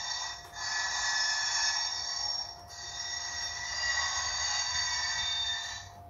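Recorded railway wheel-flange squeal played through the small speaker of an Iowa Scaled Engineering Squealer sound module, set off by a passing HO scale train at its motion sensors. The high-pitched squeal, several tones at once, starts suddenly, dips twice, and cuts off shortly before the end.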